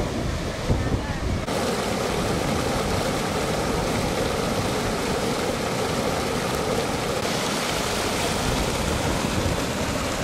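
Muddy floodwater pouring over a submerged road and churning downstream: a steady, loud rush of water. Wind buffets the microphone with a low rumble for about the first second and a half.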